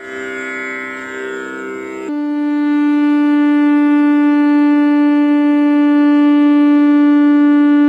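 A held chord of steady tones for about two seconds, then a conch shell (shankha) blown in one long, unwavering note.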